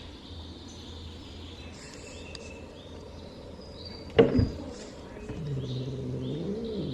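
Steady room hum, broken about four seconds in by a single sharp knock, then a low, drawn-out call that bends up and down for about a second and a half near the end.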